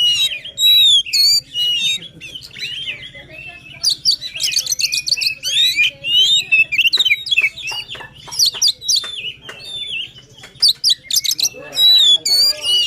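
Oriental magpie-robin (kacer) singing a loud, fast, varied song: rapid whistled phrases that glide up and down, mixed with a run of sharp clicking notes in the middle.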